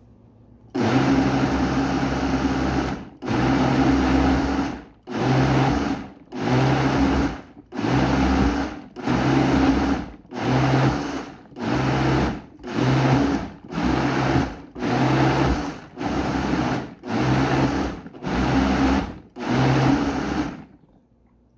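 Vitamix blender pulsed over and over, its motor running in short bursts of about a second with brief stops between, blending cherry tomatoes into a purée. The first burst runs about two seconds and the pulsing stops shortly before the end.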